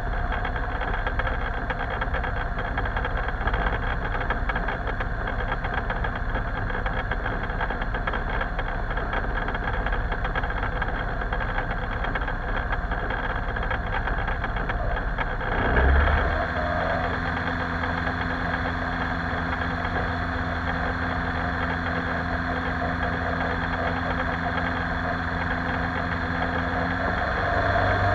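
Lil Buzzard ultralight airplane's engine idling on the ground. About halfway through it surges briefly, then settles into a steadier, more even note.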